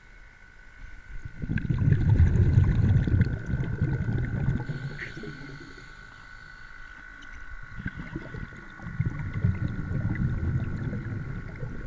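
Muffled underwater water noise picked up by a camera submerged in a brook: two swells of low rumbling gurgle, starting about a second and a half in and again about eight seconds in, with faint scattered clicks and a steady thin whine throughout.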